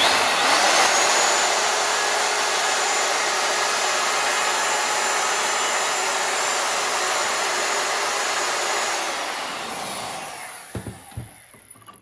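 Compact hand router running steadily at full speed, rounding over the edges of an oak keel, with a thin high whine from the spinning motor; it is switched off and winds down about nine seconds in.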